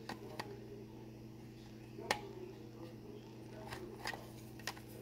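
Scattered light plastic clicks and taps from a small 1/24-scale RC crawler truck being turned over in the hand, the sharpest about two seconds in, over a steady low hum.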